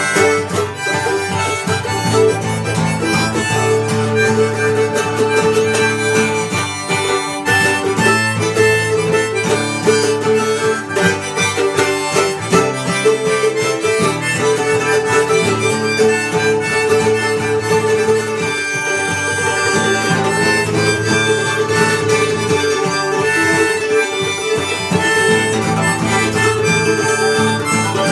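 Harmonica playing a held melody over strummed acoustic guitar in an instrumental passage of a folk song.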